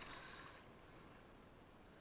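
Near silence: faint outdoor background hiss, after a brief rush of noise that dies away right at the start.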